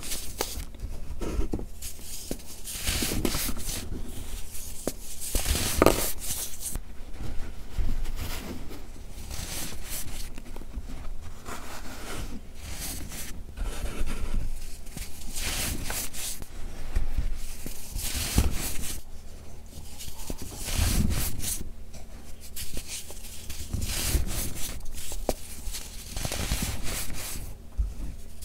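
Hands crushing and crumbling gritty pressed baking soda into loose powder: irregular soft crunches and grainy rubbing, with louder crunches at the start and about six seconds in.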